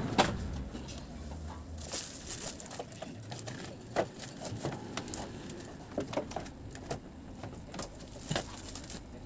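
Background ambience with scattered light clicks and taps, the sharpest just after the start, over a low hum that fades out about two seconds in.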